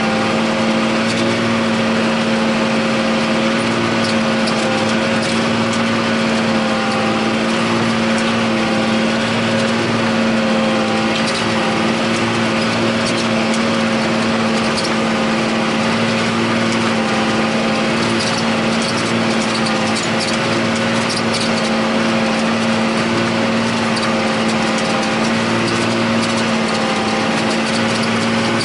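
John Deere 8100 tractor's six-cylinder diesel running steadily under load while pulling a disk ripper through the ground, heard from inside the cab as an even drone with a faint rattle over it.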